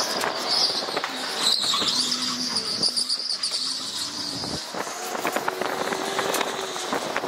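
Electric go-kart driving hard on an indoor track: a steady motor whine with a high-pitched tyre squeal and scattered knocks and clicks.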